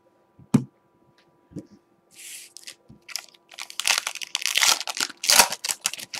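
Shiny plastic wrapper of a Prizm trading-card pack being torn open and crinkled by hand. A light knock comes about half a second in, a few brief rustles follow, and then a dense run of crinkling and tearing takes up the second half.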